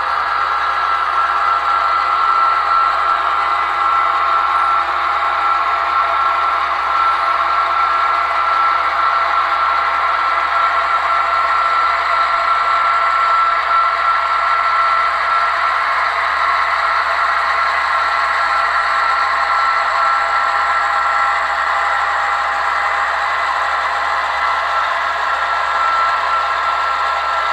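HO-scale model diesel locomotives running with a steady, unchanging diesel engine sound, thin and with little bass, as a consist of four units hauls coal hoppers past.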